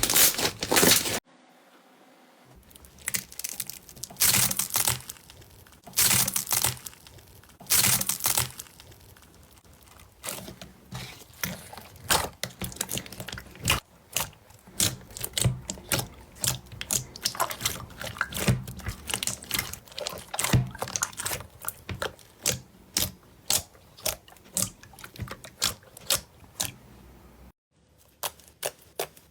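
Slime being squeezed and pressed by hand, making crackling, crinkling pops and clicks in quick clusters. The sound cuts off suddenly about a second in and again near the end.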